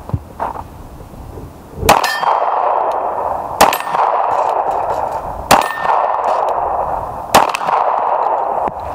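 Four 9mm pistol shots from a Sig Sauer M11A1, evenly spaced about two seconds apart, with steel targets clanging and ringing from hits.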